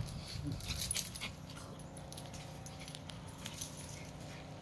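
An adult dog and a puppy playing: sharp clicks, rustles and a jingle of collar tags in the first second or so, with a short low dog sound about half a second in, then quieter.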